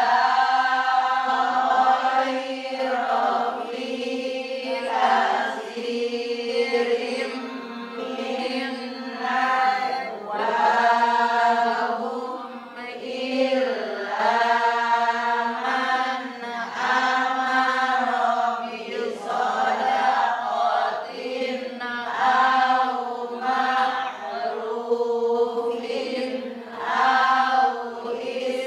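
A man reciting the Quran in Arabic, chanted slowly to a melody with long held notes and short pauses for breath between phrases.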